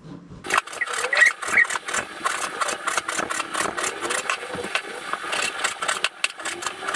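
Kitchen knife slicing raw pork belly on a cutting board: a fast, even run of knocks and scrapes that starts about half a second in.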